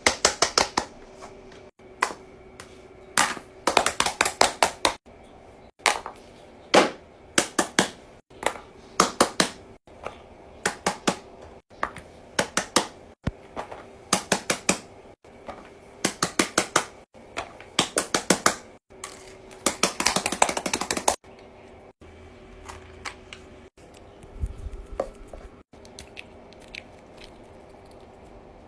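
Small hard objects tapped and clicked by hand in quick runs of sharp clicks, each run a few seconds long and broken off abruptly, with a faint steady hum underneath.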